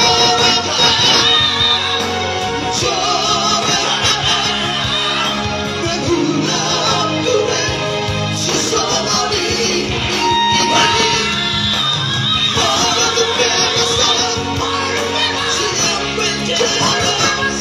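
Male vocal trio singing live through microphones over amplified backing music, with long held notes, one about ten and a half seconds in.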